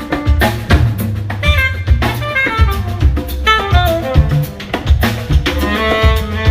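Live band playing a jazz-style number, with drum kit and bass driving under melodic lines.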